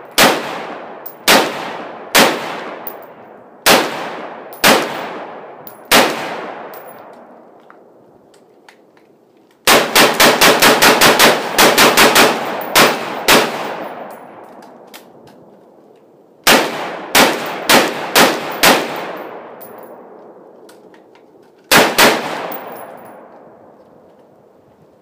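Ruger Mini-14 .223 rifle firing: a handful of single shots about a second apart, then a fast string of over a dozen shots in under four seconds, then five more shots and a final quick pair near the end. Each shot echoes and fades.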